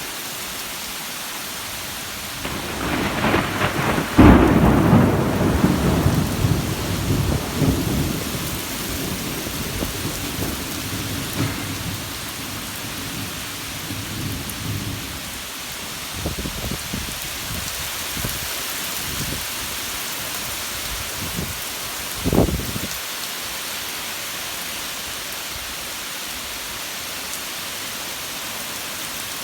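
Steady summer rain with thunder: a long rolling rumble builds a few seconds in and fades slowly over about ten seconds, and a short, sharp thunderclap comes near the end.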